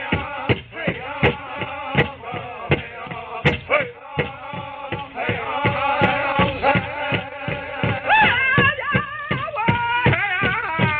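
Powwow drum group singing an intertribal song: a large drum struck in a steady beat, about two to three strokes a second, under the singers' voices. The high singing swells up louder about two-thirds of the way through.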